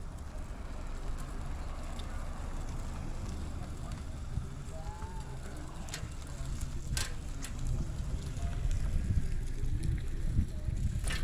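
Wind on the microphone and the low rumble of an Electra beach cruiser bicycle rolling along, with sharp clicks and bumps from the bike about six and seven seconds in. A couple of faint short squeaks about five seconds in.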